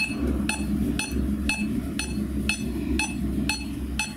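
Smartphone metronome app ticking steadily at 120 beats per minute: two sharp, bright clicks a second.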